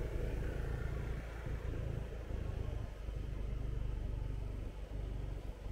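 Steady low rumble of riding a motorbike through city street traffic: the bike's engine and tyre and road noise, with other scooters running close by.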